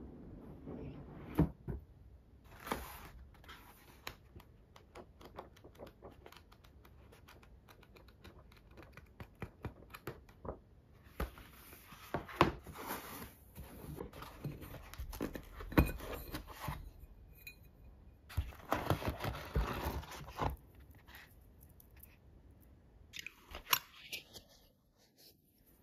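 Unboxing a metal engine model kit: the cardboard box handled, a glossy paper booklet rustling in two longer stretches, and near the end a metal part lifted out of a foam tray with light clinks and scrapes.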